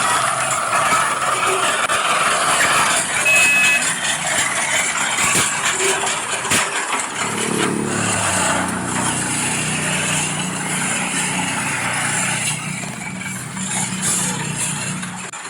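Engine sound from scale RC heavy equipment (excavator and bulldozer) at work: a noisy hiss at first, then about seven seconds in a steady low engine drone comes in. A brief high beep sounds about three seconds in.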